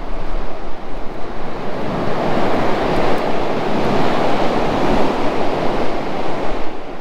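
Sea surf washing onto a beach, one wave swelling up and easing off in the middle, with wind buffeting the microphone.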